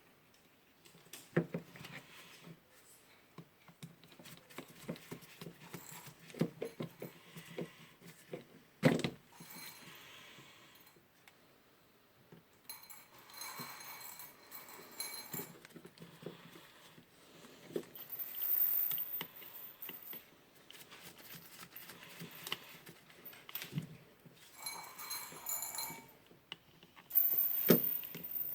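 Scattered small clicks, light knocks and brief rustles of hand work on the grinder's wiring: wire ends, screws and small parts handled at the switch with a screwdriver. A sharper knock comes about nine seconds in, and there is a burst of clatter near the end.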